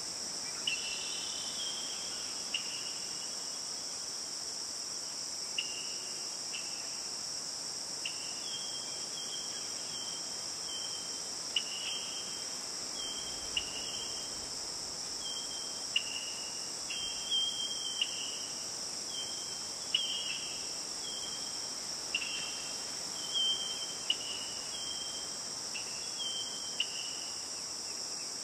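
Steady, high-pitched chorus of insects such as crickets, with short chirps breaking in every second or so, some sliding slightly downward.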